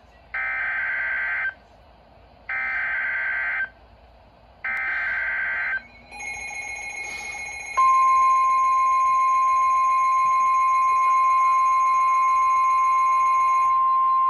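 NOAA Weather Radio Emergency Alert System alert: three one-second bursts of the SAME digital data header, a raspy electronic screech that encodes the alert and trips warning receivers. About eight seconds in, the steady 1050 Hz warning alarm tone comes on, over fainter higher steady tones.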